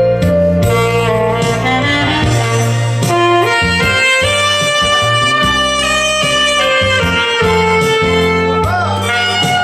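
Alto saxophone playing a slow melody in long held notes over a bass and chord accompaniment.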